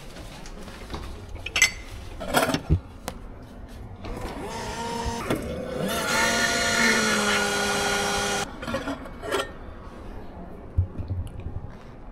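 Automatic coffee machine dispensing a drink into a porcelain cup: a motor or pump hum with hiss builds about four seconds in, runs steadily for a few seconds with a steady whine, and cuts off suddenly. Light clicks and knocks of crockery and handling come before and after.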